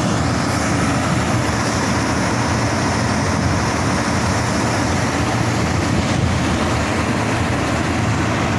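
Kobelco SK380XD LC crawler excavator's diesel engine running steadily under load while the machine tracks up onto a lowbed trailer.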